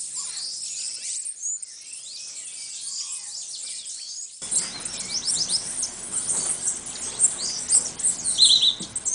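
Many small birds at a feeder chirping and twittering, a dense chorus of quick high calls. About four and a half seconds in, a steady background hiss comes in under the calls, and near the end a few louder repeated notes stand out.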